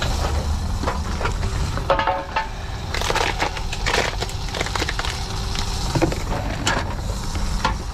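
Cans and plastic bottles clattering and being crushed inside a TOMRA reverse vending machine as they are fed in, a run of sharp knocks and clicks over a steady low hum.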